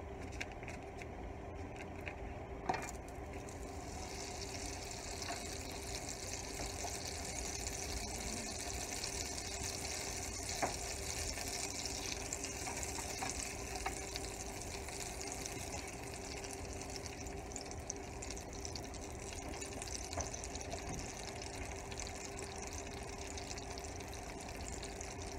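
Butter sizzling and crackling as it melts in a hot nonstick skillet, the sizzle coming up a few seconds in and then holding steady. A faint steady hum runs underneath.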